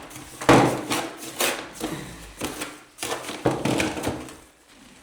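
A run of sharp knocks and thuds as small stones are knocked in to wedge a lintel beam in a stone wall, the loudest about half a second in.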